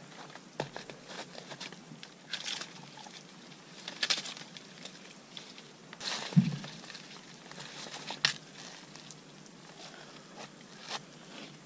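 Dead lower spruce twigs being snapped off by hand and gathered, with irregular sharp cracks and rustling of branches. The loudest snaps come about four, six and eight seconds in, the one near six seconds with a dull thud.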